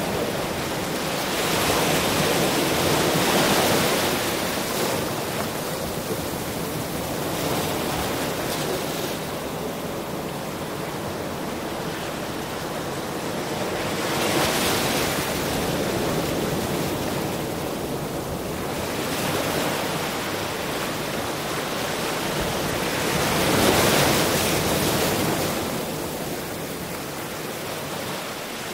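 Ocean surf washing up on a beach as a continuous hiss. It swells three times as waves come in, the last one the loudest, near the end.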